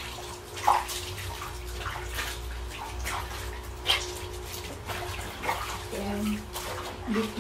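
Wet underwear being hand-scrubbed and wrung in a plastic basin of soapy water: irregular sloshing and splashing, with two sharper splashes, about a second in and about four seconds in.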